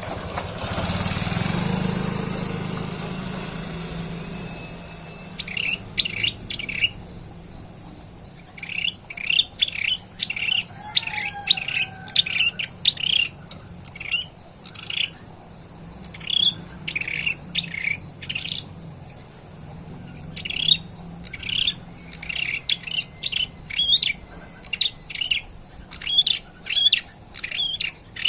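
Ashy tailorbird (prenjak kepala merah), a young male, singing in clusters of short, sharp repeated chirps with pauses between the runs. A low rush of noise fades over the first few seconds, before the chirping starts.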